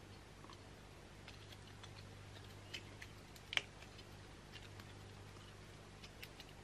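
Faint small clicks and paper crinkles of adhesive sandpaper being peeled from its backing and handled, one sharper click about three and a half seconds in, over a low steady hum.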